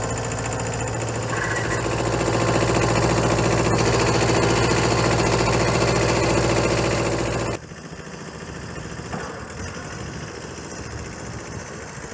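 Kubota B5000 compact tractor's engine running steadily close by, growing louder about two seconds in. About seven and a half seconds in, the sound drops suddenly to a quieter engine as the tractor drives along.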